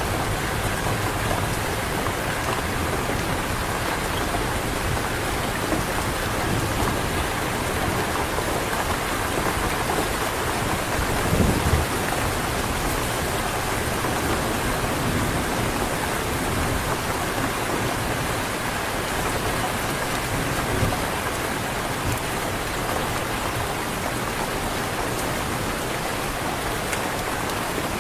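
Heavy rain falling steadily, an even hiss of drops. There is a brief low rumble about halfway through.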